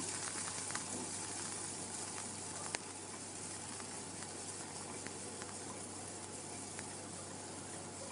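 Onion sautéing in a little hot oil in a pan: a steady soft sizzle with scattered small pops, and one sharper click about three seconds in.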